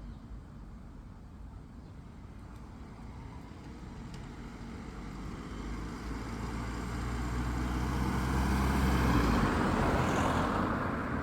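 A motor vehicle driving past: its engine hum and tyre noise grow steadily louder, peak about nine to ten seconds in, then begin to fade.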